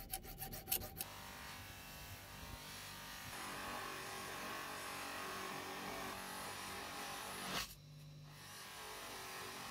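A steel file rasping across the jaws of needle-nose pliers in quick, even strokes for about the first second. After that a buffing wheel's electric motor runs with a steady hum as the pliers are polished against the cloth wheel, louder from about three seconds in, with a brief dropout near the end.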